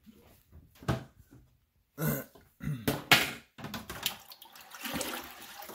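A bowl knocking against the inside of a bucket a few times, then water sloshing steadily as the bowl is dipped in and fills.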